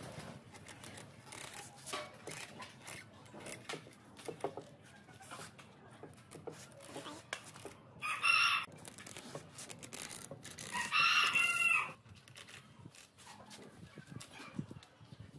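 Loose strands of rattan cane webbing crackle and snap as hands pull and tear them off. A rooster crows loudly twice, briefly about eight seconds in and at greater length near eleven seconds, its call falling in pitch at the end.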